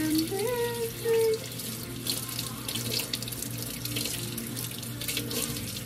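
Kitchen faucet running into a stainless steel sink, water splashing irregularly over small fish being rinsed by hand.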